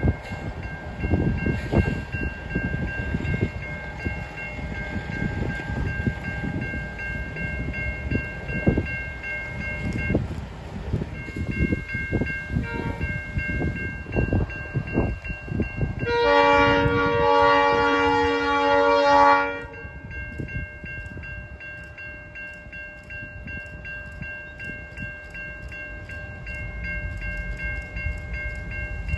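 Horn of an approaching NR class diesel locomotive: a short toot about 13 seconds in, then one long, loud blast of about three seconds a little past halfway. Low gusty rumbling underlies the first half.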